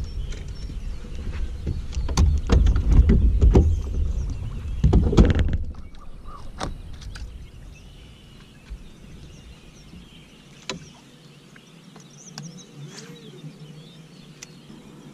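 Bass boat bow: a low rumble with many knocks and clanks for about five and a half seconds that cuts off suddenly. Then it is much quieter, with a click or two and faint bird calls.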